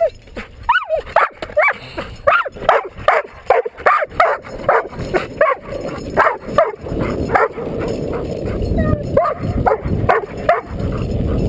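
Dog yipping and whining excitedly in a rapid series of short high yelps, about two to three a second, eager to pull on its leash. From about seven seconds in, longboard wheels rolling on asphalt rumble under the yelps as the dog starts towing the rider.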